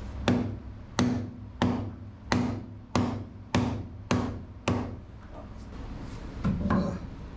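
Hammer striking the metal propeller shaft and its bearing block, eight evenly spaced blows about two-thirds of a second apart, each ringing briefly. A duller knock follows near the end.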